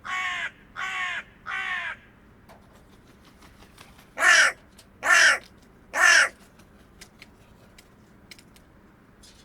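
Hooded crow (Corvus cornix) cawing: a series of three harsh caws, then after a short pause a louder series of three, each caw short and dropping slightly in pitch.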